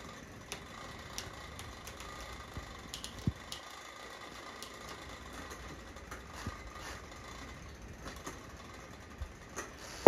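Low steady background noise with scattered faint clicks and ticks.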